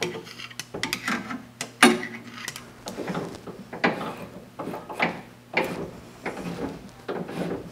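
Irregular metallic clicks and clunks from hand work on the upper blade guide of a 1950s Do-All vertical band saw as it is adjusted and greased, the loudest knock about two seconds in.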